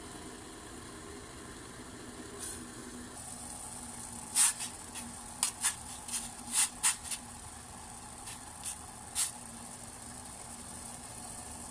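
A small pot of water with bay leaves boiling on the stove: a steady hiss, with a run of short, sharp pops and crackles from about four to nine seconds in.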